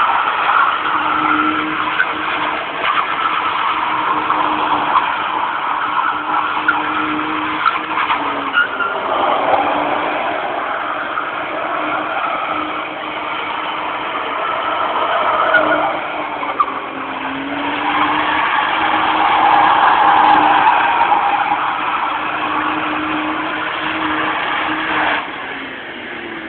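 Vauxhall Corsa's engine held at high revs while the car drifts, with tyres squealing on the tarmac. The revs dip and pick up again a couple of times, then drop away near the end.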